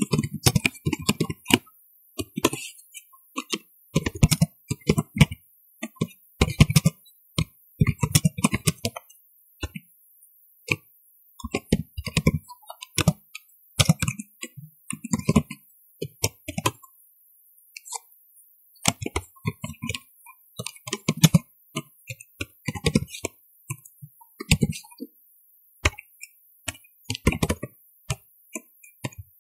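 Typing on a computer keyboard: rapid keystrokes in bursts, with short pauses between them.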